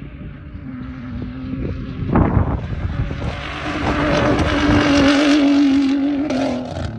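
A Ford Raptor's big-turbo twin-turbo EcoBoost V6 under hard throttle off-road. The engine note climbs a little and holds loud for several seconds, over road and wind noise, with a sudden loud burst of noise about two seconds in.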